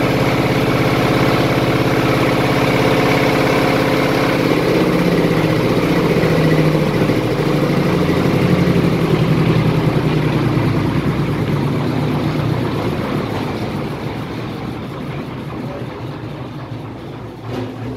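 Wood chipper's single-cylinder diesel engine running steadily. About four seconds in, its beat slows and changes, and over the last several seconds the sound fades away as the engine is shut down and the machine winds down.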